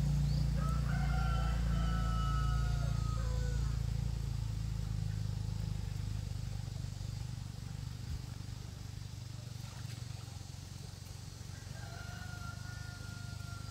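A rooster crowing twice over a steady low rumble: a long crow about half a second in and a shorter one near the end. The rumble is loudest at the start and fades slowly.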